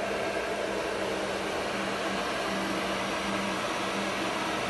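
ALCA 2030 ACT CNC router running steadily: an even whir and hiss with faint steady hum tones and no changes.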